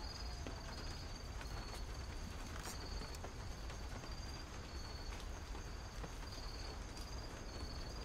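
Faint night ambience: crickets chirping in short, repeated high trills over a low steady hum.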